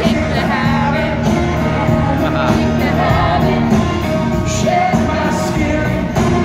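Live rock band playing with a man singing lead, heard from among the audience at an open-air amphitheater concert.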